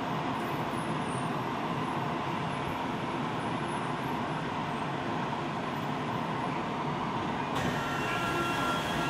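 Inside a Tokyo Metro Ginza Line subway car running through a tunnel between stations: a steady rumble of wheels and running gear. About seven and a half seconds in, the hiss grows brighter and faint thin high whines come in.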